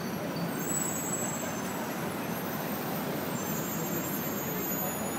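Steady din of city street traffic, with buses, trucks and taxis idling and moving through an intersection.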